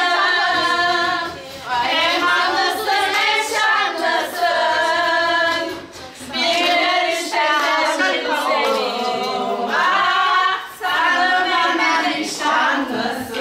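A group of voices singing together without instruments, in phrases separated by short breaths.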